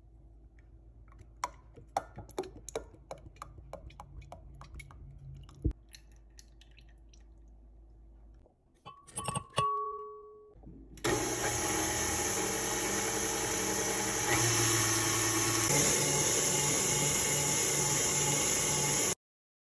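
Stand mixer running fast with its wire whisk whipping cream in the bowl: a loud steady motor whir that starts about eleven seconds in, gets louder a few seconds later and cuts off abruptly near the end. Before it, light clicks and taps of utensils against glass and a brief ringing clink.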